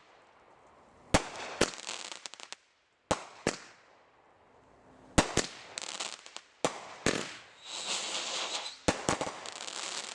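Consumer fireworks going off: pairs of sharp bangs about every two seconds, each followed by crackling, with a longer hissing crackle shortly before the last pair.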